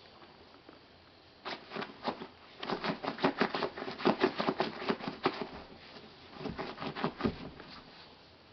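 Two Basenjis play-fighting: a run of quick clicks, snaps and scuffles from their jaws and paws as they mouth and paw at each other, starting about a second and a half in and dying away near the end.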